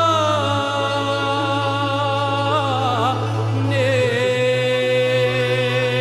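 Bulgarian Rhodope folk song: long held, ornamented melody notes over a steady low drone. The drone steps up in pitch about four seconds in.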